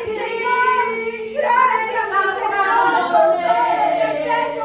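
A group of women singing a worship song together, with long held notes.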